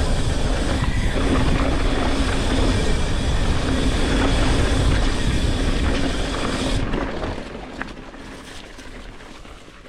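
Mountain bike descending a dirt trail, heard from a rider-worn GoPro: loud wind buffeting on the microphone with tyre and trail rumble. It drops off sharply about seven seconds in.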